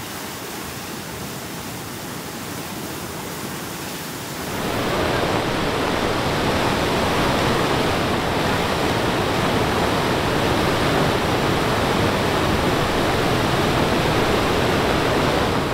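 Steady rush of water from a flash-flooded river pouring through a breach in the beach into the surf. It gets louder about four and a half seconds in.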